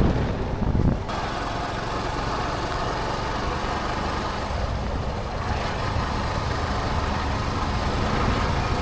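Steady engine and road noise of a motor vehicle running, with a low rumble throughout; the sound changes abruptly about a second in.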